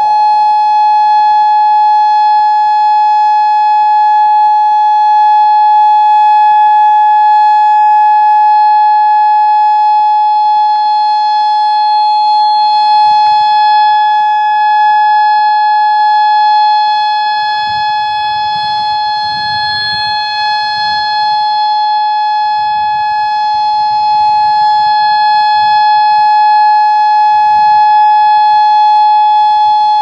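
Federal Signal Modulator II electronic warning siren sounding a loud, steady single tone held at one pitch, a single-tone rather than dual-tone signal.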